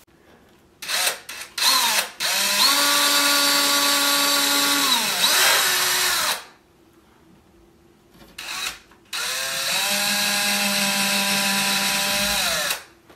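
DeWalt cordless drill with a 1/16-inch bit boring two small test holes through drywall to find where the wall stud ends. Short trigger blips, then two runs of a few seconds each of steady motor whine that winds up to speed and winds down as the trigger is released.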